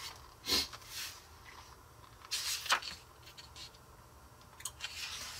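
Glossy magazine pages rustling as hands handle and smooth them: a few short paper rustles, with a sharper tap about two and a half seconds in.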